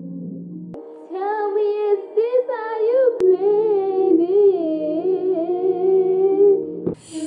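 A woman's voice singing a slow, smooth melody over a song's backing of held chords. The singing comes in about a second in and breaks off abruptly near the end.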